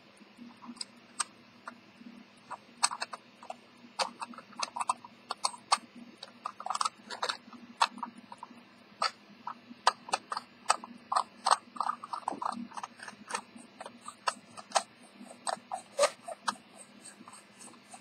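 Irregular light clicks and scratching of fingers and fingernails working over a cloth-covered watchmaker's bench pad, over a low steady hum.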